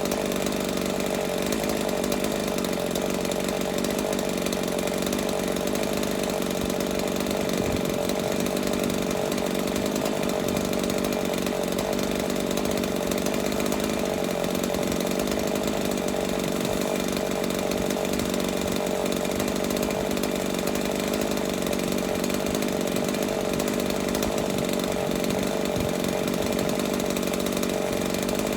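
Chainsaw running steadily at an even speed, with no pauses or revving.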